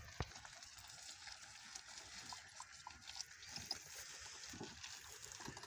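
Water buffalo pulling a wooden cart over grass: faint, scattered soft knocks and rustles.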